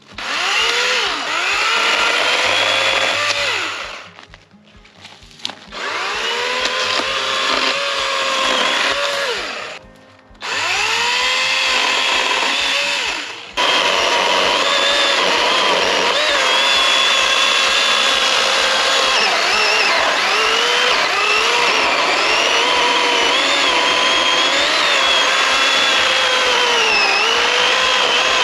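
Greenworks Pro 80V cordless chainsaw's brushless electric motor whining as it limbs a felled fir. It revs up and eases off in several short runs with brief pauses, then runs without a break from about halfway through, its pitch wavering under load.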